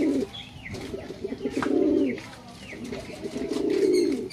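Domestic pigeon cooing: a run of rolling, warbling coos, each about a second long with short breaks between them. This is a male cooing at a female in courtship, a sign that he is in breeding mode.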